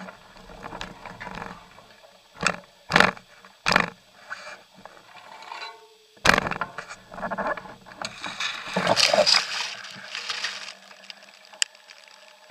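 Bicycle and its handlebar camera jolting hard: several sharp knocks and rattles, then a couple of seconds of scraping and rustling through tall grass about eight seconds in.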